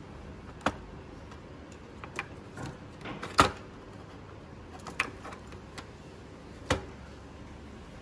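Irregular sharp plastic clicks and knocks from a small square cooling fan and the plastic housing of an opened projector being handled, about half a dozen in all, the loudest about three and a half seconds in.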